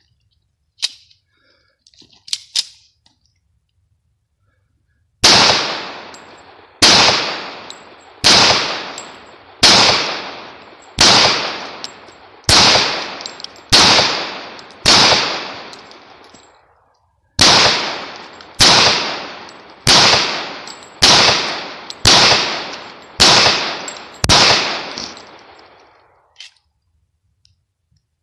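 A .45 ACP 1911 pistol fired in steady, evenly paced single shots, about sixteen in all, roughly one every second and a half, each trailing off in an echo, as it runs through a 15-round extended magazine without a stoppage. A few faint clicks of gun handling come before the first shot.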